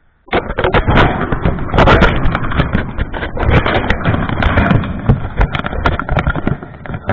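Handling noise from a small camera held in the hand: fingers rubbing and knocking on the camera body right at its microphone. It makes a dense, loud rustle full of clicks and thumps that starts suddenly a moment in and keeps going.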